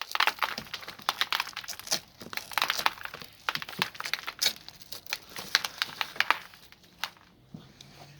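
Broken rear-window glass crackling and crunching in quick irregular clicks as the rubber window seal is worked free, dying down near the end.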